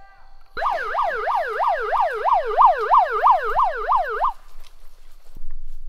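Electronic siren in a fast yelp, its pitch sweeping up and down about three times a second for nearly four seconds, then cutting off.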